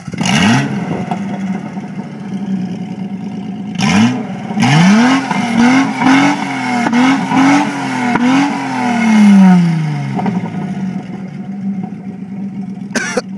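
Straight-piped 1977 Datsun 280Z inline-six firing up with a quick rev, then idling. About four seconds in it is revved, then blipped about six times in quick succession, and held up in one longer rev that falls back to a steady idle; a couple of sharp clicks come near the end.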